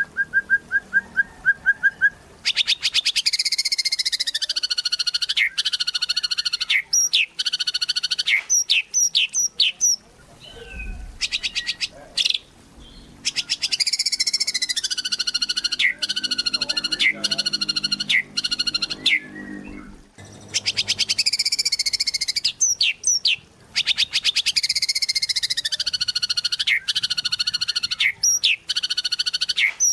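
White-rumped shama singing in full song. A short run of rapid clicks is followed by long, loud phrases of fast trills and sweeping whistles, the same phrase returning three times with sharp single whistle notes and short pauses between.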